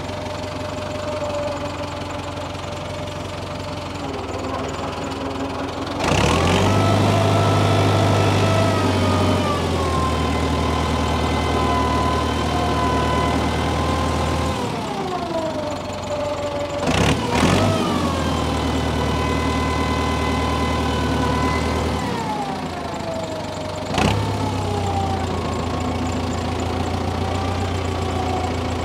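Tractor engine running, revved up three times as it works the hydraulics to pull fence posts out of the ground. The engine speed rises about six seconds in, holds for several seconds, then drops back. It comes up again with a clunk a little past halfway, falls back, and rises once more with another clunk near the end.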